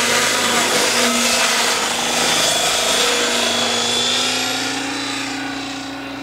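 Electric radio-controlled helicopter lifting off and climbing away. Its motor whine and spinning rotor blades hum steadily, then fade gradually in the last couple of seconds as it gains height.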